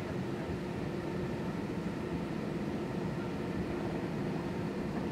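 Steady interior cabin noise of an airliner taxiing: the jet engines running at low thrust, heard as an even hiss with a steady hum and a low rumble.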